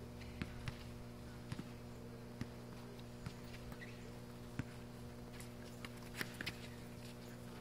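A basketball bouncing on pavement, heard from a distance as irregular short, sharp knocks, over a steady low hum.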